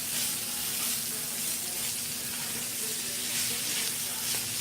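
Shaved steak, green peppers and onions frying in a hot pan, with a steady sizzle.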